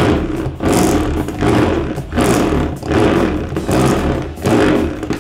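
Rocket-style pull-cord egg scrambler whirring as its cord is yanked out and rewound, spinning a raw egg inside its shell to scramble the yolk into the white. It comes in repeated surges, a little faster than once a second, one per pull.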